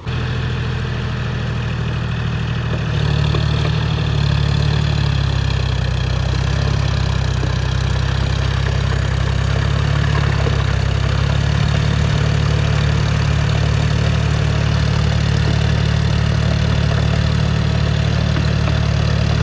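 John Deere tractor's diesel engine running steadily, getting louder about three seconds in and holding there.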